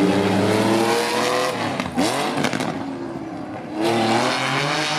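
Rally car engine under hard acceleration, its pitch climbing, then lifting off about two seconds in with a quick fall in pitch as it goes by. Near the end the engine comes back louder and climbs again.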